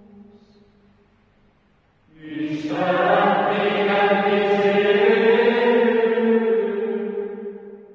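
Title music of sustained, chant-like choir voices: a held chord swells in about two seconds in, holds steady, and fades away near the end.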